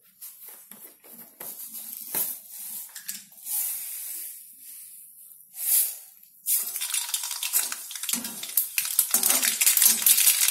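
Hot oil in a kadhai sizzling faintly at first. About two-thirds of the way in, mustard seeds hit the oil and it breaks into a dense crackling sizzle as the seeds start to splutter and pop.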